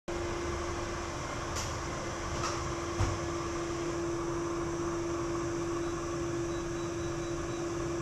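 Samsung POWERbot robot vacuum running: a steady motor hum with one strong droning tone. Two light clicks and a short dull thump come within the first three seconds.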